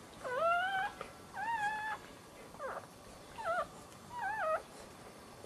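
Newborn dachshund puppy crying: about five short, high-pitched squeals, each bending up and down in pitch, stopping a little after four and a half seconds in.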